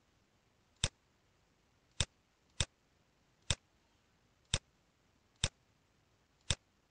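Computer mouse clicking, seven single clicks at uneven intervals.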